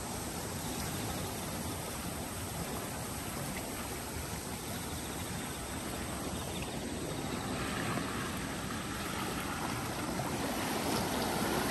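Rain-swollen creek in flood, muddy water rushing along its channel in a strong current: a steady rushing that grows gradually louder toward the end.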